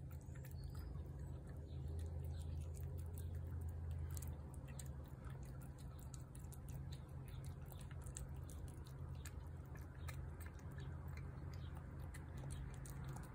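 A cat chewing wet food from a plate, with many small, quick wet clicks of its teeth and tongue, over a steady low rumble.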